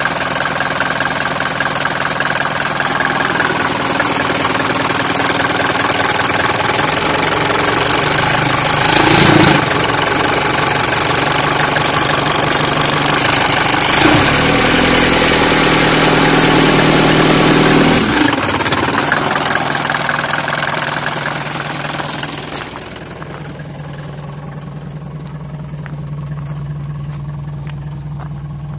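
Mercedes-Benz OM601 four-cylinder diesel engine of a 200TD running cold at idle, with a loud steady diesel clatter. Its pitch swells briefly about nine seconds in and again for a few seconds from about fourteen seconds, and it is heard quieter from about twenty-three seconds on.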